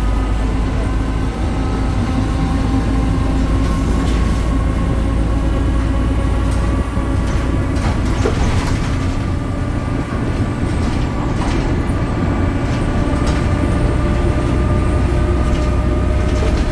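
BredaMenarini Avancity Plus city bus, with a Deutz diesel engine and a ZF gearbox, running on the move: a steady low rumble under several steady whining tones, with scattered clicks and rattles.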